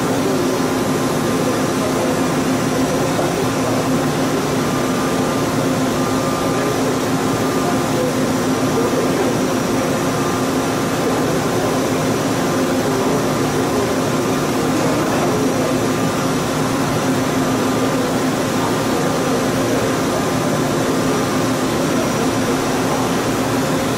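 CNC milling machine running, a small end mill finish-cutting a metal mold cavity: a steady mechanical whir with a constant hum and a faint high whine from the spindle.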